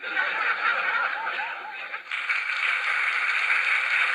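A loud, steady noisy hiss starts abruptly and holds, with faint wavering tones a little over a second in and more high hiss joining about halfway through.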